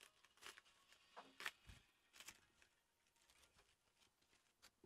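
Faint handling of a wrapped parcel: a few scattered light clicks and rustles, each short, over near silence.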